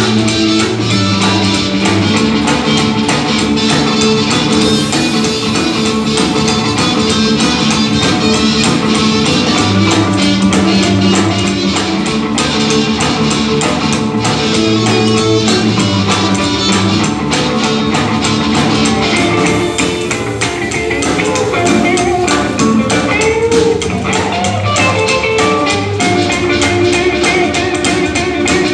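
Live blues band playing: a harmonica blown into the vocal microphone over upright bass, drum kit and hollow-body electric guitar.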